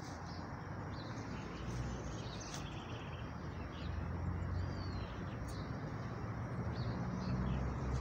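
Outdoor ambience: steady low background noise with a few faint, scattered bird chirps.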